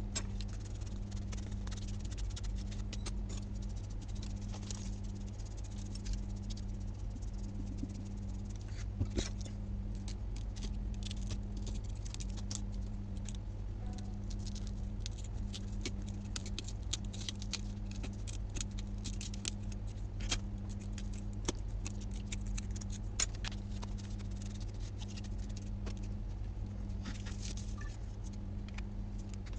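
Many small, irregular clicks, ticks and light rattles of hand tools working on a phone during an iPhone 12 Pro Max back-glass replacement. Under them runs a steady low electrical hum, with a faint tone in it that breaks off about once a second.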